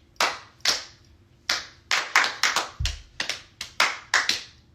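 A run of hand claps, about fifteen, in quick uneven groups, with one low thump about three seconds in.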